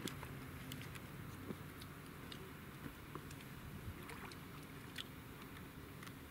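Faint, steady low hum of a distant engine, with scattered light clicks.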